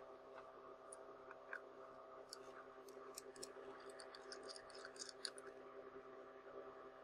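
Faint, scattered small metallic clicks and ticks of a small screwdriver working the tiny screws on the rear mount of a Nikon Series E 100mm lens. The clicks come quickest from about two to five seconds in, over a faint steady hum.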